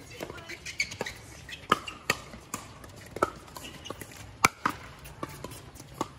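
Pickleball paddles striking a hard plastic ball in rallies on several courts: sharp pops at an irregular pace, about one to two a second. The loudest hit comes about four and a half seconds in.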